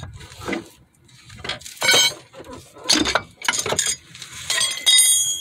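A series of hammer blows on steel, knocking an old CV axle's splined outer shaft out of the wheel hub and steering knuckle; sharp metallic clanks, the last one near the end leaving a ringing tone.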